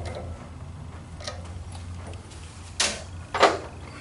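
A few short, sharp knocks and clatters of metal tools being handled at a metalwork lathe, the loudest two near the end, over a steady low hum.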